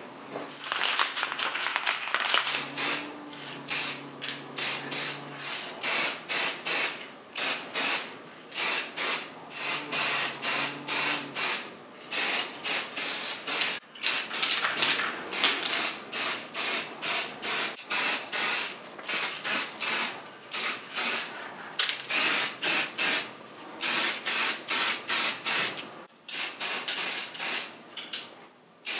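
Aerosol spray paint can spraying in dozens of short bursts, often two or three in quick succession with brief pauses between, as paint is laid on in light passes.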